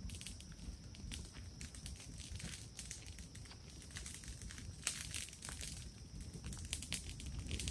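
Pile of dry brush crackling and popping as it catches fire and the flames build, with a sharper pop about five seconds in.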